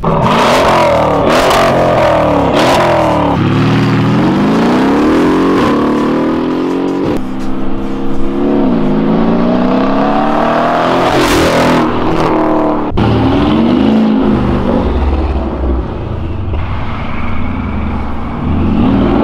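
Mercedes-AMG GLE63 S's twin-turbo V8 through a valvetronic cat-back exhaust and catless downpipes, accelerating hard past: the revs climb and drop back at each upshift. Several sharp cracks come from the exhaust near the start and again about eleven seconds in.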